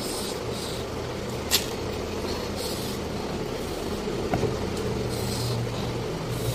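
Steady low machine hum, with a single sharp click about a second and a half in.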